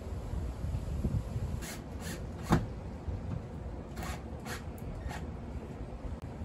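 Scattered rubs and short knocks of hands and a small tool working against wooden wall siding, the sharpest knock about two and a half seconds in, over a steady low wind rumble on the microphone.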